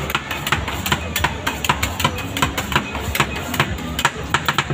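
Two metal spatulas chopping and scraping ice cream mix on the frozen steel plate of a rolled ice cream machine: sharp metallic clacks, several a second, coming faster near the end. A low steady hum runs underneath.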